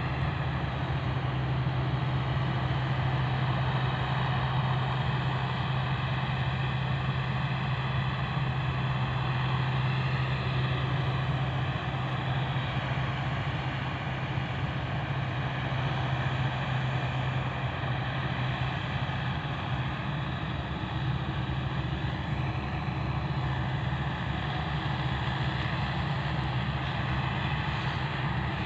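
Combine harvester running steadily while cutting rice: a continuous low engine drone with a constant hum.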